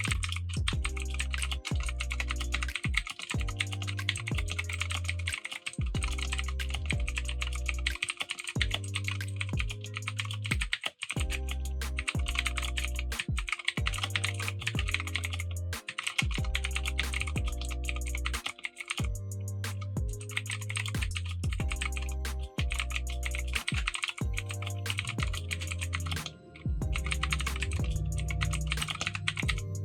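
Continuous fast typing on a PC356A 60% mechanical keyboard with ET clicky blue box-style switches: a dense stream of key clicks, muted for blue switches. Background music with a steady bass line plays underneath.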